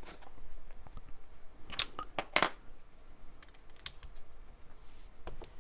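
A handful of light, separate clicks and taps from tools being handled at a Taig benchtop lathe, with no steady motor sound.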